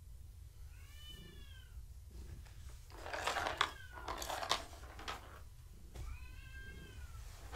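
A cat meows twice, two drawn-out meows that rise and fall in pitch, several seconds apart. Between them comes a louder stretch of clattering, a round plastic track-ball cat toy being picked up and moved.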